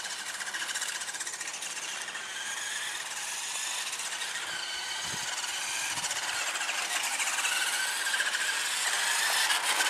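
Electric drive motor and plastic gearbox of a Nikko Hummer H2 remote control truck running, a high whine that rises and falls in pitch as the truck speeds up and slows down.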